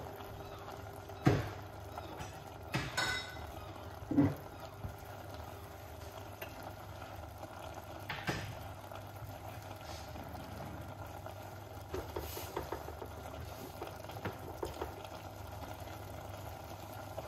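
Vegetable stir fry simmering in a stainless steel pan with a steady bubbling hiss, steam rising off it. A few sharp knocks come in the first half, and light crackling near the end.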